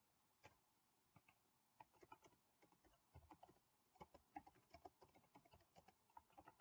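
Faint typing on a computer keyboard: quick, irregular key clicks as a short sentence is typed.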